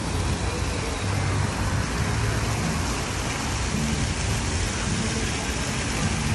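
Steady splashing hiss of fountain jets falling into their stone basins, with a low rumble underneath.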